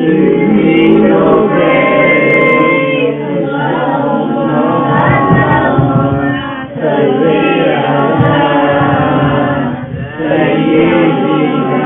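A group of children singing a durood together in chorus, phrase after phrase, with brief breaks between lines.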